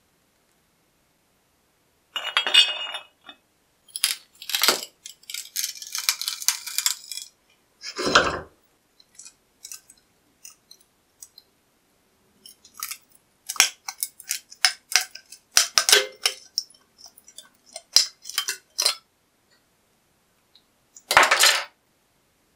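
Brittle, rust-eaten steel of an old cleaver blade being broken away in pieces, with scattered sharp cracks and small fragments clinking. There is one heavier knock about eight seconds in and a last cluster of cracks near the end.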